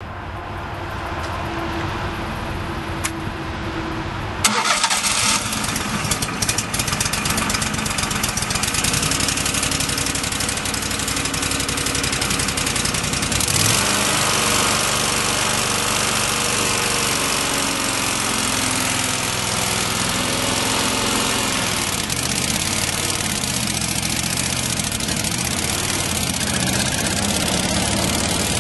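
Vermeer BC600XL brush chipper's engine starting and running. The sound turns suddenly louder about four and a half seconds in, rises again about thirteen seconds in as the engine speeds up, then runs steadily.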